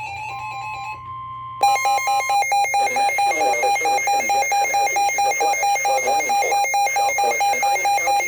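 Emergency Alert System attention signal: a loud, steady electronic alert tone pulsing rapidly, which comes in sharply about a second and a half in, after a quieter steady tone.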